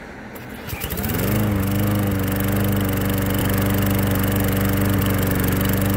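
Small gasoline engine on a walk-behind push mower, spun up by a cordless drill on its top instead of the pull cord. It catches with a rising pitch about a second in, then runs at a steady speed.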